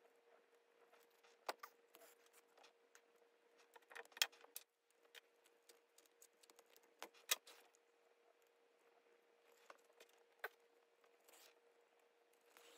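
Faint hand-stitching of faux leather: a needle and thread drawn through pre-punched holes, making soft rustles and scattered sharp clicks, the loudest about four and seven seconds in, over a faint steady hum.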